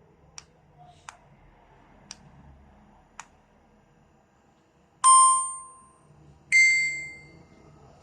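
Electronic talking reading pen switching on: a few faint clicks, then a two-note electronic start-up chime, the second note higher and longer than the first.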